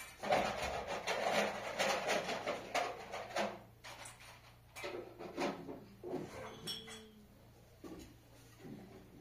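Clattering and scraping of household things being handled, such as pots, dishes and wood, busy for the first three seconds or so, then a few scattered knocks.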